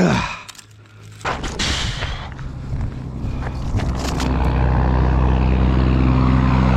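A motor vehicle's engine approaching, its rumble growing steadily louder, after a brief falling sound at the very start.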